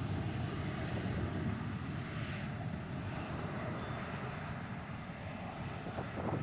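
Jet engine noise from a Boeing 737-400's CFM56-3 turbofans on the runway: a steady, deep rumble that slowly grows fainter.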